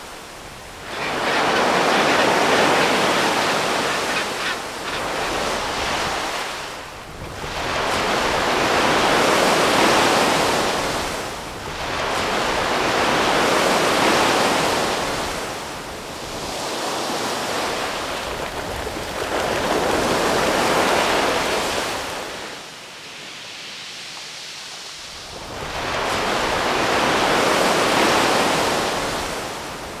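Sea waves washing in and drawing back, swelling and fading in slow surges every few seconds, with a longer lull about two-thirds of the way through.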